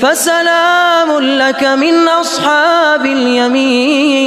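A man's voice chanting Quran recitation in melodic tajweed style. He holds long drawn-out notes, jumping up in pitch at the start and then weaving small turns and trills through the second half of the phrase.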